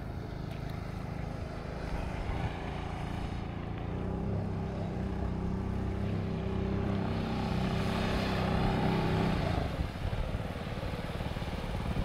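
A small boat's engine runs steadily, growing louder, then cuts out about nine and a half seconds in.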